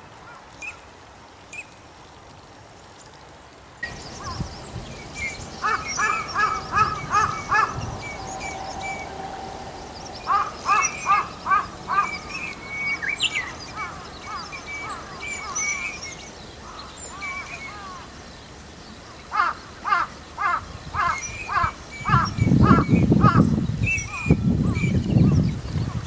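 Male Eurasian teal calling: bouts of short, high, whistled notes, about four a second, repeated three times with fainter higher chirps around them. Near the end a louder low rumble comes in.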